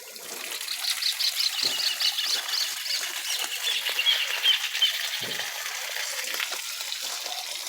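Water from a hose rushing through a radiator being flushed of dirty coolant, with a bird chirping a quick run of short notes over it about a second in.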